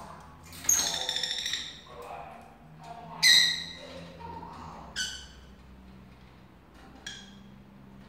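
Lovebirds calling: shrill squawks, a longer one about a second in, the loudest a little past three seconds, then two short ones near five and seven seconds.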